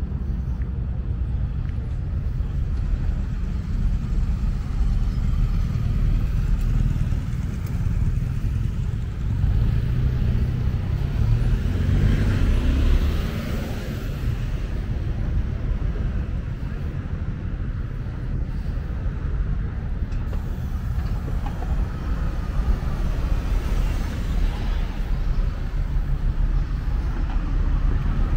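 Street traffic on the adjacent road, with cars passing over a steady low rumble; one vehicle swells and fades about halfway through.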